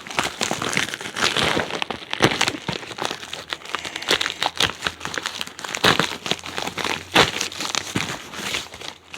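Packaging being handled during an unboxing: irregular crinkling and rustling with scattered sharp clicks and knocks.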